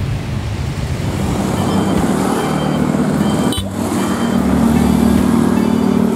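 Road traffic with car engines running close by. The sound changes abruptly a little past halfway, after which a steady low engine hum is louder.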